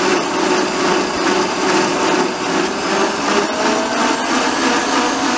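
Electric stand mixer running steadily at speed, its wire balloon whisk beating eggs, sugar and vanilla in a stainless steel bowl to whip them into a cream.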